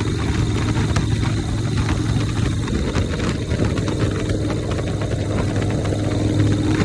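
Harley-Davidson Shovelhead V-twin engine on a 1983 chopper, running steadily. From about two and a half seconds in until near the end, a fuller rushing noise swells over the engine note.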